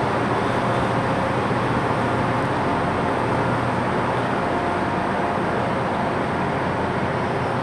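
Steady railway-station platform ambience: an even rushing noise over a constant low hum, with diesel trains running in the distance.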